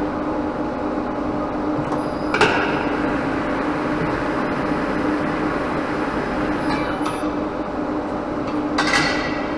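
Tyre-workshop machinery running with a steady hum, and two sharp knocks, one about two and a half seconds in and one near the end.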